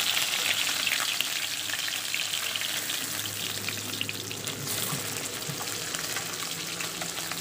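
Climbing perch (kawoi fish) frying in hot oil in a wok: a steady sizzle with crackling spatter, and a metal ladle scraping through the pan as the pieces are turned and lifted out.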